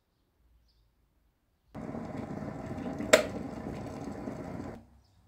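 Water boiling in a glass electric kettle (Beko): a steady rushing, bubbling noise that starts suddenly about a second and a half in and dies away near the end, with one sharp click about halfway through.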